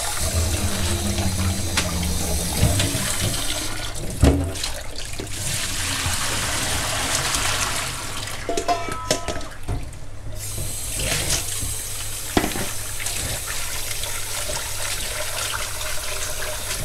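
Tap water running into a metal bowl in a stainless-steel sink while a hand swishes and rubs shrimp in it to rinse off the starch. About halfway through, the bowl's water and shrimp are poured out into a plastic colander, with a few knocks of the bowl against the metal.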